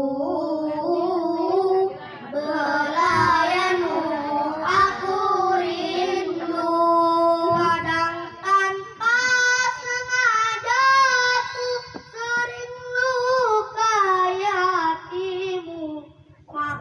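A child singing a syair, a sung Indonesian poem in praise of the mother, in slow ornamented phrases with long held notes that waver in pitch and short pauses for breath.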